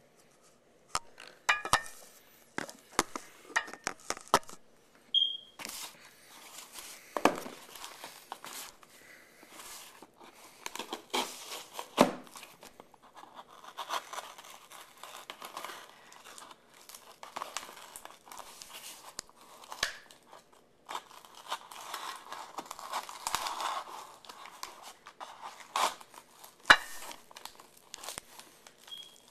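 Mail package being opened by hand: packaging tearing and crinkling in irregular bursts, with many sharp clicks and knocks as it is handled.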